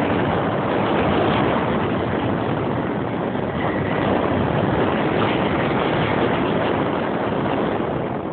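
Yamaha XT125X motorcycle riding along: engine noise blended with a steady rush of wind over the microphone.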